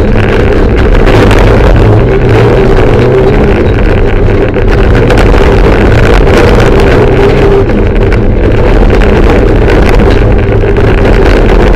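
Mitsubishi Lancer Evolution III's turbocharged four-cylinder engine, heard loud from inside the cabin while the rally car is driven hard, holding a steady pitch. The engine briefly eases about four and a half seconds and eight seconds in.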